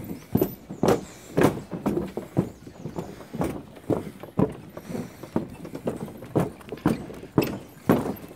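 Footsteps on the wooden plank deck of a suspension footbridge: a steady walking rhythm of knocks, about two steps a second.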